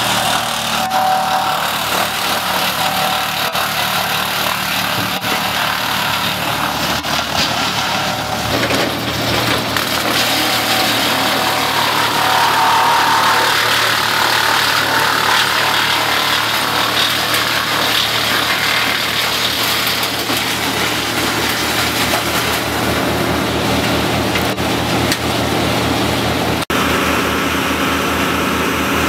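Wood chipper running steadily and grinding redwood branches as they are fed into its chute, the grinding loudest in the middle stretch.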